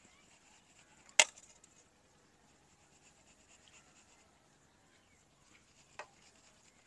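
Gram flour being sifted through a hand-held metal sieve: a faint scratchy rustle, with one sharp tap about a second in and a lighter tap near the end.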